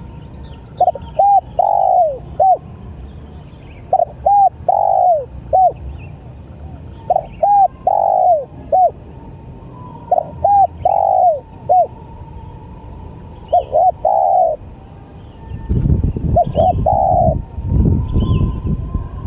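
Spotted dove cooing: six repeated phrases, each a couple of short coos, a longer arched note and a short final coo, about every three seconds. A low rumbling noise joins over the last few seconds.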